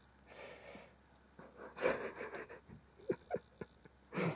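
A Shetland sheepdog breathing and panting softly close to the microphone, with a few light clicks about three seconds in.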